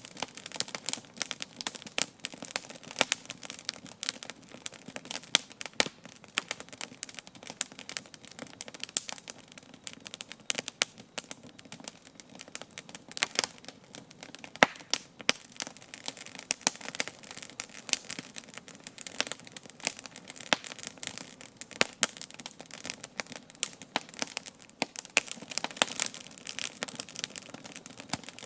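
Wood campfire crackling steadily, with many irregular sharp snaps and pops.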